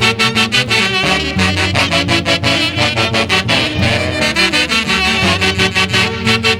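Peruvian orquesta típica playing a Santiago festival tune: horn-section melody led by saxophones over a fast, steady beat.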